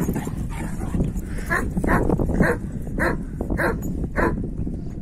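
Kangal shepherd dogs scuffling, with a run of six short barks, about one every half second, in the middle of the stretch.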